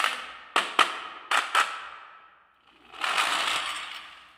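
Marbles clacking sharply against a wooden marble run, five quick hard hits with short ringing tails in the first second and a half. After a short gap a dense rattle of marbles rolling and tumbling down the track swells, then fades.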